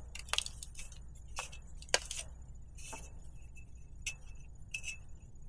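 Scattered light clicks and small metallic clinks of tools and small metal parts being handled, a few with a brief ring.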